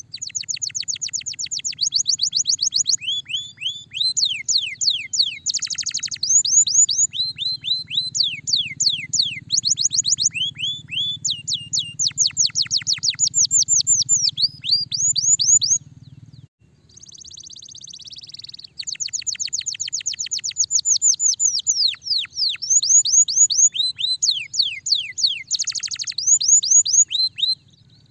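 Domestic canary singing: fast trills of repeated, downward-sweeping whistled notes, switching from one trill to another every second or two, with a short pause about two-thirds of the way through.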